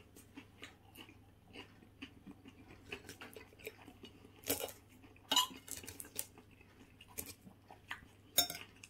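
Metal knife and fork clinking and scraping on a ceramic plate as a pie is cut up, with chewing in between. A few sharper clinks come about halfway through and near the end.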